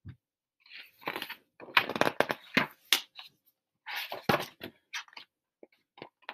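Pages of a hardcover picture book being flipped and handled: a run of paper rustles and sharp crackling clicks, busiest between about one and five seconds in.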